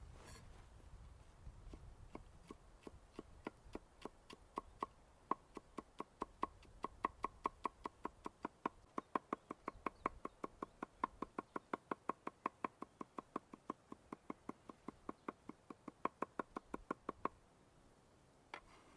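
Steady run of sharp knocks, about four a second, growing stronger through the middle and stopping short, with two more after a pause near the end: rhythmic food-preparation knocking.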